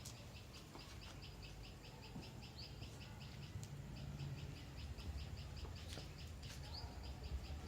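Faint, high chirping repeated evenly about five times a second without a break, from a small animal in the background, over a low rumble.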